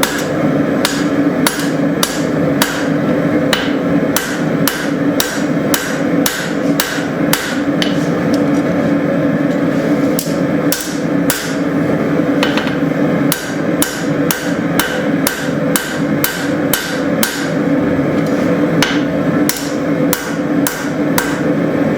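Rounding hammer striking hot leaf-spring steel on an anvil, steady blows about twice a second, with a steady hum beneath.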